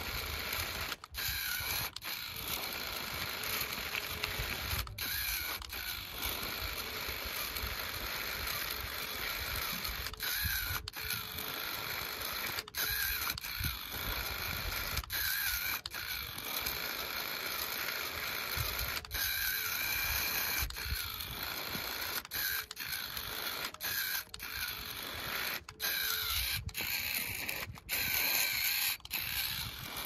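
Small electric gear motor and gearbox of a homemade remote-control model tractor whining and grinding as it strains to pull a loaded trolley through loose sand. It stops and starts again many times as it is driven back and forth to cut a track, its wheels digging in.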